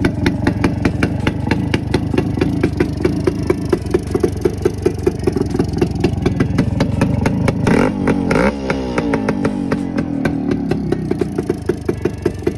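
1973 Suzuki TS250's two-stroke single-cylinder engine running with a rapid, even beat of firing strokes; about eight seconds in the pitch rises and falls briefly as the revs change.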